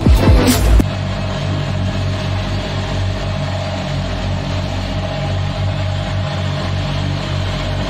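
Road construction machinery's diesel engine running steadily at an even speed, after a burst of music cuts off about a second in.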